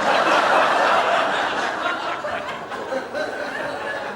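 Studio audience laughing: a loud wave of laughter that peaks in the first second or so, then slowly dies down.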